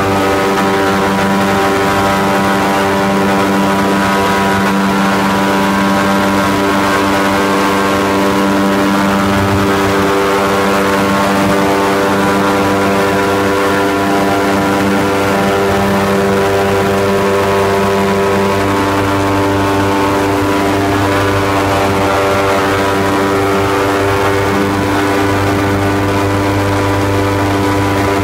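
Airboat's engine and air propeller running at cruising speed: a loud, steady drone with only small shifts in pitch.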